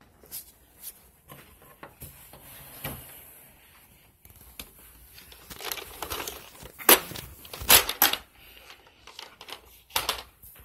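Rummaging and handling noise: rustling and scraping with scattered clicks and knocks, the loudest a cluster of sharp knocks about seven to eight seconds in and another about ten seconds in.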